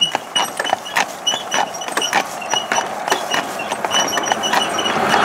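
Hooves of a pair of Percheron draft horses clip-clopping on asphalt, with short high metallic clinks from the harness and cart. Near the end the hiss of an approaching car's tyres rises.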